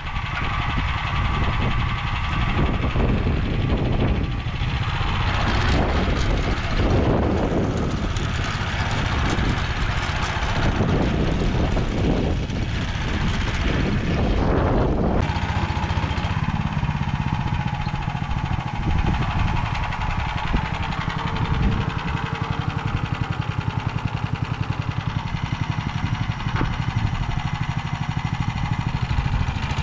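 Motor Sich walk-behind tractor's engine running under load as its narrow rotary tiller churns through soil, the sound surging every couple of seconds. About halfway through it cuts to a steadier, even running.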